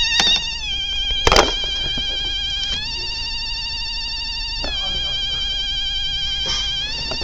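Electronic warbling alarm or ringer tone, a fast trill that steps between pitches every two seconds or so. A couple of sharp knocks near the start, the loudest about a second in.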